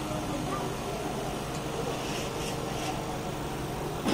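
Steady machine hum, with a few soft scraping strokes about two seconds in as a small knife is drawn along a straight-edge through a stack of thin samosa pastry sheets.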